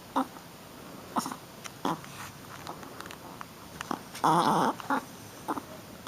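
Shih Tzu puppy's short play vocalizations: a few brief growly yips, then a longer, louder call about four seconds in and two more short ones after it.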